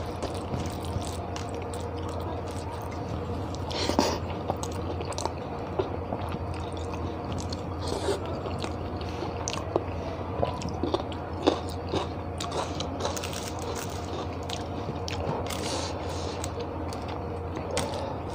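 Close-up chewing and biting of rice and egg curry eaten by hand, with scattered sharp crunchy bites. The loudest come about ten to twelve seconds in, while a raw green chilli is bitten. A steady low hum runs underneath.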